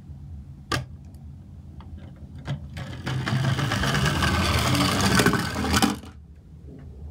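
A sharp click under a second in, then, from about three seconds in, a plastic toy forklift runs across a wooden board with its geared drive whirring loudly for about three seconds before it stops.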